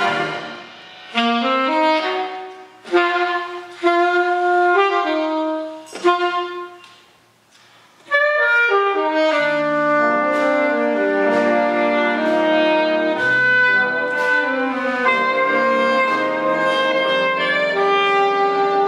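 Jazz big band of saxophones and brass playing a ballad: short separate chords with gaps for the first eight seconds, fading almost out, then the full band coming back in with long sustained chords.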